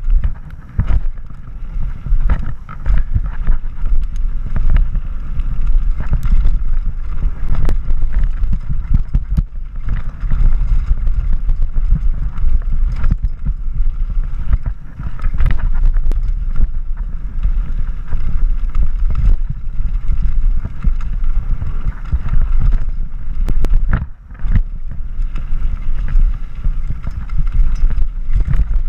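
Wind buffeting the microphone and the rumble of mountain bike tyres over a loose gravel dirt trail on a fast downhill run, with frequent short knocks and clatters as the bike hits rocks and bumps.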